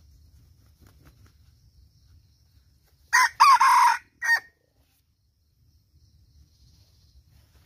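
A red junglefowl rooster crowing once, about three seconds in: a short, loud crow of about a second and a half that breaks off into a brief final note.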